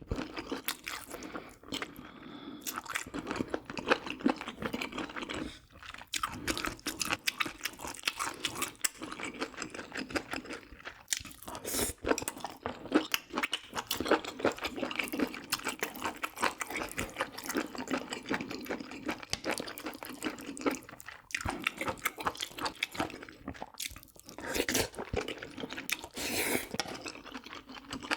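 A person eating close to the microphone: wet chewing and crunching of a spicy braised pork rib (galbijjim) meal, with many small clicks and a few brief pauses.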